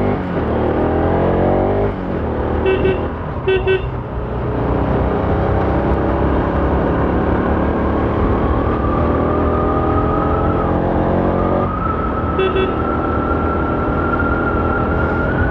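Bajaj Pulsar RS200's single-cylinder engine accelerating through the gears, the revs climbing steadily in each gear and dropping at upshifts about two seconds in and about twelve seconds in. Short motorcycle horn beeps sound twice about three seconds in and once more later on.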